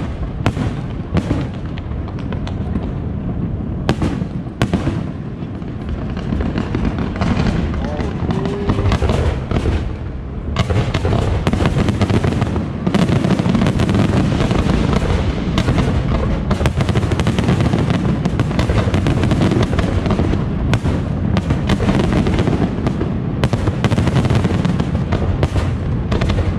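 Fireworks display: a dense, unbroken run of bangs and crackles, getting thicker and louder about ten seconds in.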